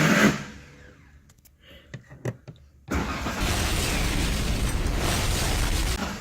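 A short loud thud, two faint clicks, then about three seconds in a Cummins diesel engine starts on the newly installed ignition switch and runs steadily.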